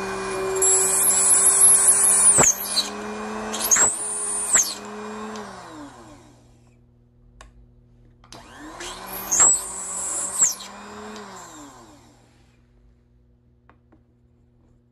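Mini bead-drilling machine's small electric motor running while drilling the centre hole in a 20 mm wooden bead. It cuts off about two and a half seconds in with a falling whine, then runs in two more short bursts, about four seconds in and again about eight and a half seconds in, each winding down. Near the end there is only a faint hum.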